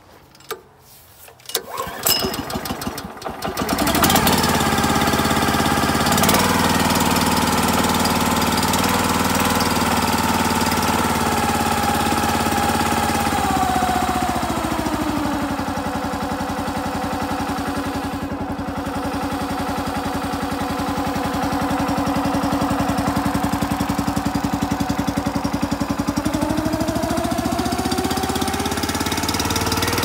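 Kohler 9.5 horsepower single-cylinder gas engine on a mini backhoe being started: a few seconds of rattling cranking, then it catches about four seconds in and runs fast. Its speed drops to a lower, steady running about fourteen seconds in and climbs back up near the end.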